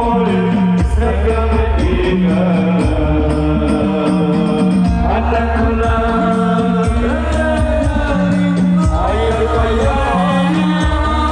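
Live sholawat, an Islamic devotional song: a man sings a melismatic melody through a PA system over an amplified band with a repeating bass line and regular drum beats.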